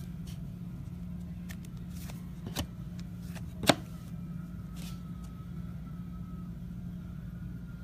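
Steady low hum of the room with a few light clicks and taps from cards being handled, the sharpest click a little before four seconds in.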